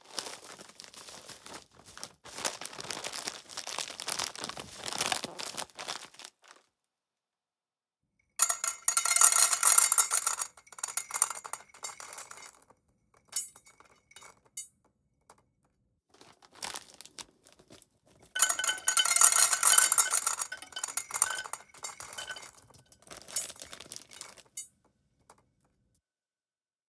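Dry cat food clattering into a bowl. It starts with several seconds of softer rattling, then comes two loud pours of a few seconds each, the pieces clinking and ringing against the bowl, with a few stray clinks in between.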